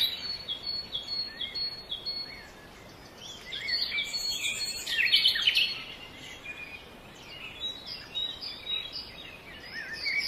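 Birds chirping and singing outdoors: a run of short repeated notes at first, a busier cluster of overlapping calls about four to five seconds in, and more scattered chirps near the end.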